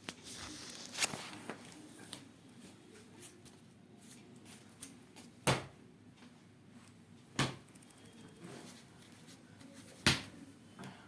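Four short, sharp clicks or knocks, several seconds apart, over a faint room background.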